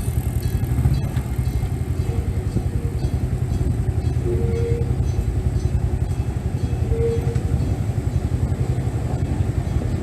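Enoden level crossing's electric-bell approach warning ringing continuously with a fast, even rattle, signalling that a train is approaching.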